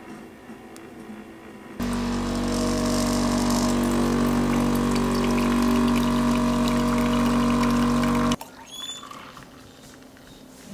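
Sage espresso machine's pump buzzing steadily while it pulls an espresso shot. It starts about two seconds in and cuts off suddenly after about six and a half seconds.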